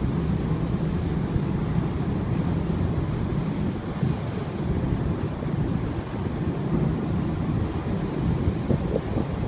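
Wind rushing over the microphone on board a ferry, over a steady low hum from the ship and the wash of the sea.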